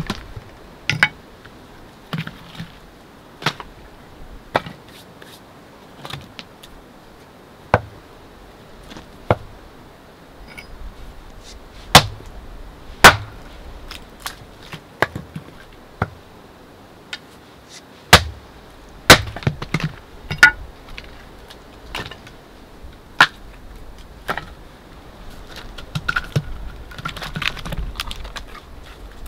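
Hatchet chopping and splitting firewood on a wooden chopping block: sharp wooden strikes every second or two at an uneven pace, a few much louder cracks among them. Near the end, a run of lighter knocks and rustling.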